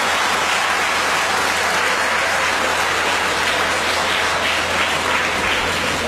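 Audience applauding, a dense steady clapping over a steady low hum.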